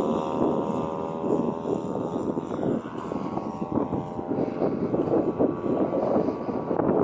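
Large radio-controlled scale warbird model's petrol engine on its take-off run, its note dropping slightly and fading over the first few seconds as the plane pulls away and lifts off, leaving rough gusty noise.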